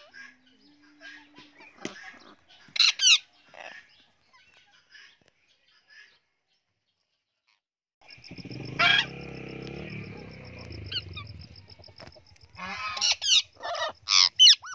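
Parrots calling: short, harsh screeches and squawks with softer chirps between them. The sound cuts out completely for about two seconds near the middle, then returns with a low rumble under one loud squawk, and a quick run of screeches near the end.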